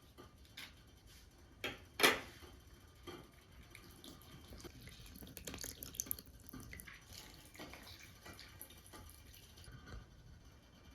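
Water pouring and splashing, as in washing food or filling a vessel, with a sharp knock about two seconds in.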